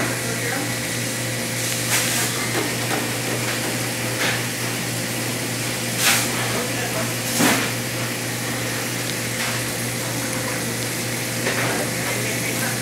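Chicken strips sizzling in hot fat in a steel frying pan over a gas burner, a steady hiss under a steady low hum, with a few short clicks, the loudest at about six and seven and a half seconds in.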